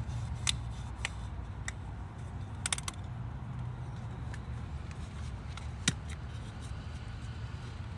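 Scattered light clicks and knocks from handling a bottle of automatic transmission fluid as it is poured in, with a quick cluster of clicks near the three-second mark and a sharper knock about six seconds in, over a steady low hum.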